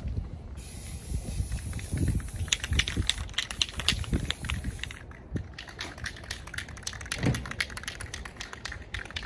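Aerosol can of primer spraying with a steady hiss that stops about five seconds in. Rapid clicking starts partway through and carries on to the end.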